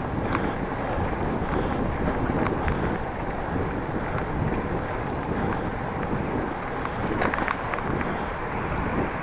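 Wind rushing over an action camera's microphone on a moving bicycle, a steady low rush of noise, with a couple of faint clicks late on.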